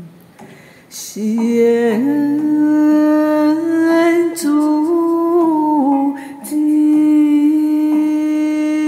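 A solo voice singing a slow Buddhist devotional song melody in long held notes that step up and down. It comes in about a second in and pauses briefly near six seconds.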